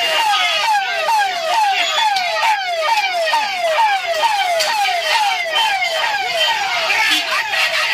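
Police vehicle's electronic siren wailing in a fast repeating pattern: a falling tone that snaps back up about two and a half times a second.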